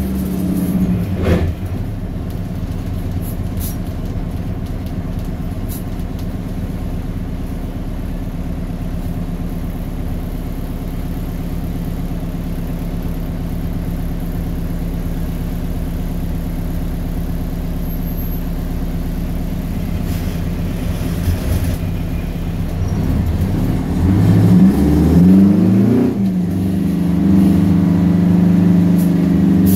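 Straight-piped 8V71 Detroit Diesel, a two-stroke V8, heard from inside the cab. The engine winds down in the first second or so and settles into a steady idle. Near the end the revs climb as the truck pulls away, dip briefly during a gear change, then climb again and hold steady and louder.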